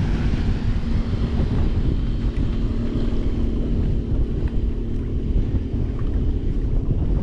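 Wind rushing over the microphone aboard a small boat, a dense low rumble with a faint steady hum underneath.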